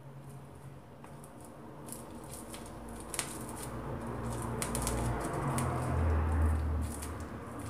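Soft rustling and small clicks of thread being pulled and wound tight around a ball of cotton stuffing by hand. A low rumble swells through the second half and is the loudest sound around six to seven seconds in.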